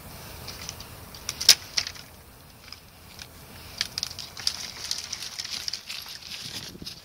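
Parson Russell terrier biting and tugging at thin bare branches: twigs crackling and snapping. There is a sharp snap about a second and a half in, and a run of dense crackling from about four to six and a half seconds.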